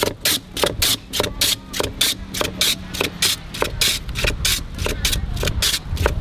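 Block of ice shaved by hand across a blade set in a wooden board: a rhythmic rasping scrape, about three strokes a second.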